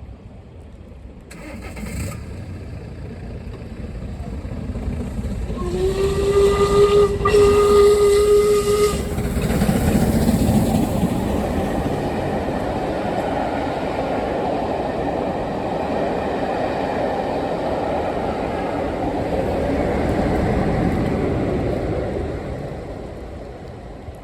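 Diesel locomotive sounding its horn as it approaches: one held note about three seconds long. Then the train running through the station, a long loud passing noise that fades near the end.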